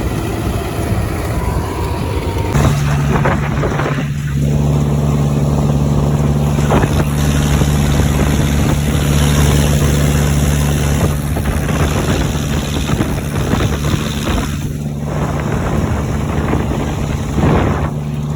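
An engine running steadily; its steady hum comes in a few seconds in and grows fuller a second or so later.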